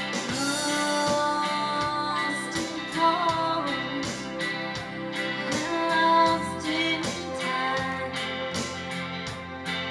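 Live rock band playing a slow song: sustained electric guitar notes with gliding bends over bass, keyboard and a steady drum beat, with a female voice singing at times.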